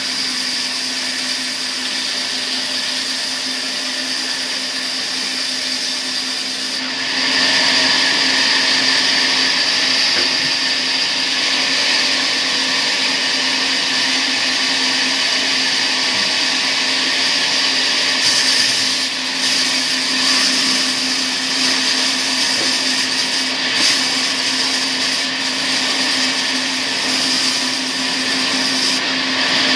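Sawmill saw running with a steady hum. About seven seconds in, it turns louder and rougher as the blade cuts into a palm log, and it keeps cutting with a few brief dips.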